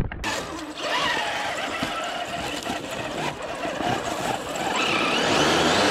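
Electric RC rock crawler climbing over a boulder: its motor and gearbox whine, rising and falling in pitch with the throttle, over a steady rush of noise.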